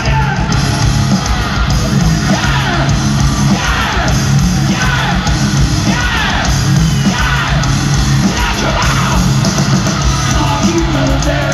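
Live heavy metal band playing loud, with shouted, yelled vocals over heavy drums and guitars, recorded from within the crowd.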